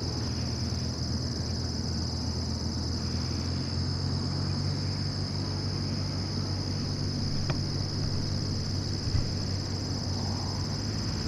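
Avid Flyer kit plane's engine running at low power as it taxis at a distance: a steady low hum that swells in the middle. Over it runs a constant high-pitched insect drone, with one sharp click about seven and a half seconds in and a soft thump about nine seconds in.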